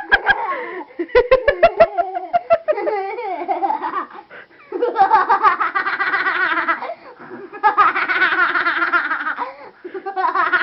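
Young child laughing hard in an exaggerated evil-scientist laugh. It starts with quick ha-ha-ha bursts, then runs into three long, pulsing laughing stretches.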